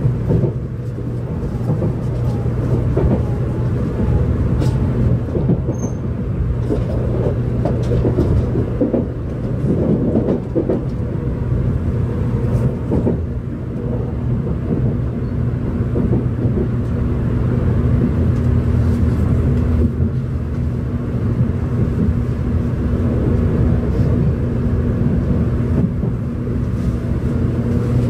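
Cabin noise inside a 700-series Shinkansen train running slowly into its terminal station: a steady rumble and hum from running gear and motors. Near the end a motor whine glides in pitch as the train brakes alongside the platform.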